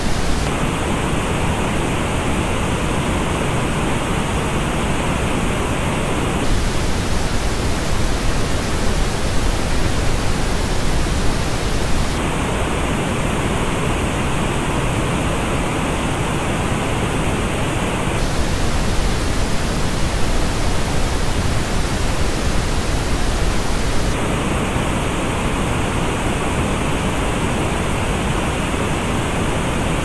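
Steady pink noise that switches about every six seconds between the flat original and the same noise reproduced through Audeze MM-100 headphones. The headphone version comes three times and has a marked hollow in the upper treble with further dips above it, making it sound duller and less even than the original.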